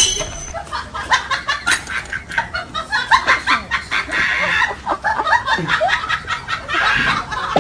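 A flock of birds making many short, overlapping calls in quick succession.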